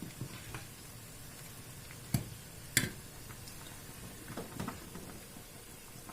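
A few sharp clicks and knocks, the two loudest about two and three seconds in and a cluster of smaller ones later, over a faint steady hiss.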